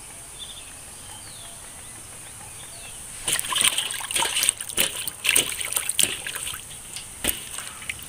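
Water splashing and sloshing in a metal basin as a hand swishes and rubs small green eggplants clean. The splashes come thick and irregular from about three seconds in, after a quieter start.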